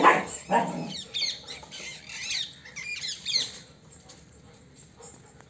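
German Shepherds at play, an adult and a puppy: two barks near the start, then a couple of seconds of high-pitched, squeaky yelps that die away.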